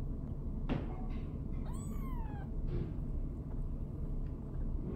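A five-day-old kitten mewing: one high-pitched mew, about two seconds in, that rises and then falls away.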